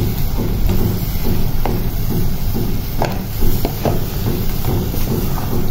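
Minced mutton frying in a steel pot while a wooden spatula stirs it, scraping and knocking against the pot many times over a steady hiss.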